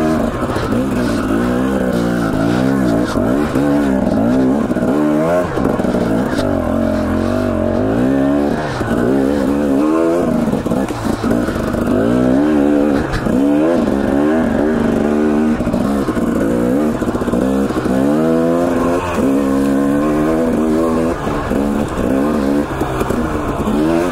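Husqvarna TE250 two-stroke dirt bike engine revving up and down under constant throttle changes while climbing rocky single track, its pitch rising and falling every second or so.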